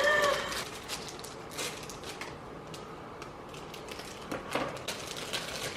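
Chocolate bar wrappers being torn open and crinkled by hand: scattered soft crackles and clicks. A short voiced sound comes right at the start.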